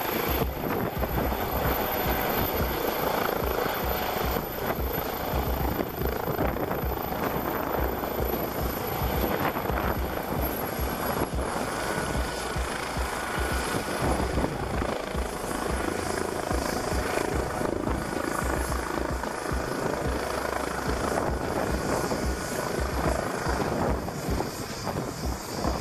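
Airbus EC135P3 twin-turbine helicopter running close by: the main rotor beats steadily over the turbine noise as it hovers low, sets down on its skids and keeps running on the ground with the rotor turning.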